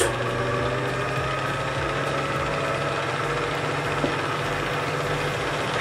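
Electric stand mixer running at a steady speed, its motor humming evenly while the flat beater stirs a thin liquid of water, yeast, sugar and melted butter in a stainless steel bowl at the start of mixing a dough.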